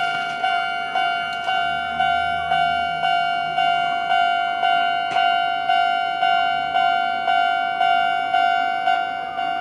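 Level crossing warning alarm ringing, a bell-like tone struck about twice a second, each strike dying away before the next.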